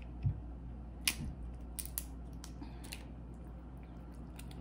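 Crawfish shells being cracked and peeled by hand, a scatter of short sharp clicks and crackles, with a low thump just after the start.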